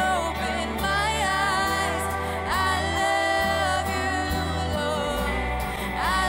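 Live contemporary worship band playing a song: a woman singing lead with a second female singer, over electric guitar, drums and a steady low bass.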